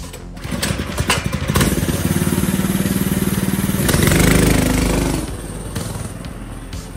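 Single-cylinder four-stroke Tillotson 212 Hemi engine on a minibike being pull-started. It catches about a second and a half in and runs steadily. Around four seconds in it revs up as the bike pulls away, then gets quieter as it moves off.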